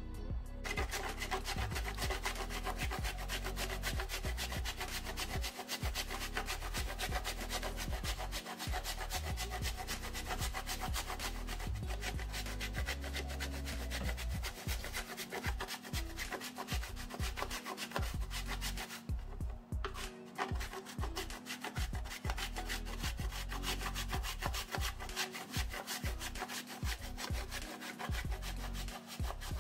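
Chocolate being grated on a hand grater: quick, continuous rasping strokes, broken by a brief pause a little before the 20-second mark.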